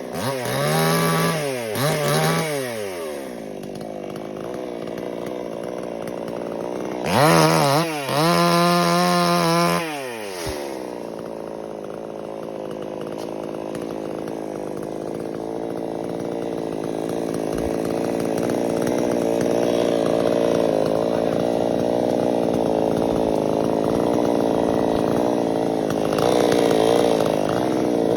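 Chainsaw engine revved up and down in short bursts, twice in the first few seconds, and again held high for a few seconds near the middle, then running steadily at lower revs for the rest.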